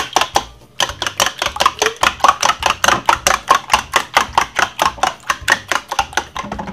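Eggs being beaten by hand in a bowl: the utensil strikes the bowl in a fast, steady rhythm of about eight clicks a second, with a short break about half a second in.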